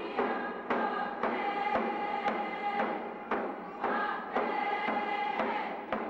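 Background music: a steady drumbeat, about two strikes a second, under long held sung or chanted tones.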